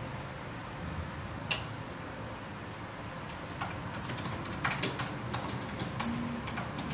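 Typing on a laptop keyboard: a single key click about a second and a half in, then an irregular run of keystrokes from about three seconds in.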